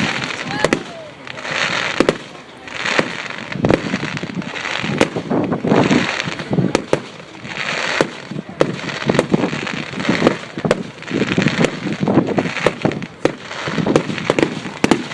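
Firework display: shells bursting with many sharp bangs in quick succession, mixed with swells of crackling every second or two.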